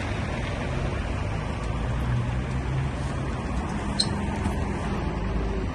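Steady low rumble of vehicle engines and traffic, with a single sharp click about four seconds in.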